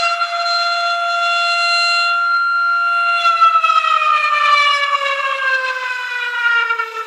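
Siren sound effect from an RC ship sound set, wailing at a steady pitch, then winding slowly down in pitch over the last few seconds before cutting off.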